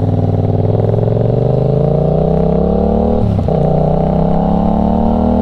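Motorcycle engine accelerating, its pitch climbing steadily, dropping with an upshift about three seconds in, then climbing again.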